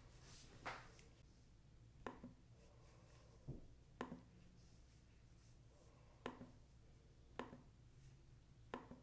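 Faint handling noise: about seven short, sharp clicks and taps at irregular intervals a second or so apart, over a faint steady hum.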